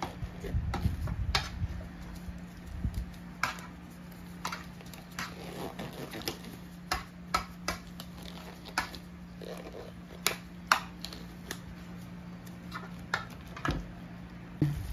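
Disposable gloves being pulled onto the hands: scattered sharp snaps and crinkles, with some low handling rumble in the first few seconds. A steady low hum runs underneath.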